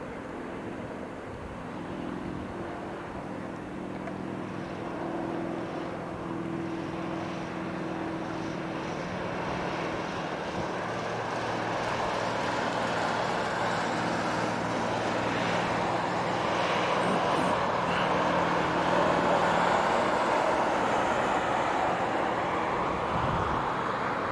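Union Pacific freight train's four diesel locomotives approaching: a steady engine drone and rumble that grows steadily louder as they draw near.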